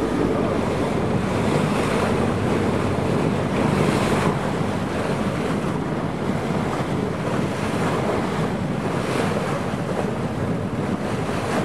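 Wind buffeting the microphone over the sound of open sea water: a steady, noisy rush that swells and eases slightly.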